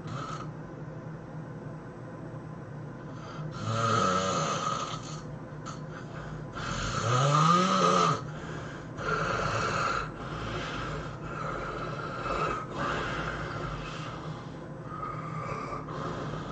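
A person snoring loudly in deep sleep: a run of harsh snores, the two biggest about 4 and 7 seconds in with a pitch that rises and falls, followed by smaller snores about a second apart.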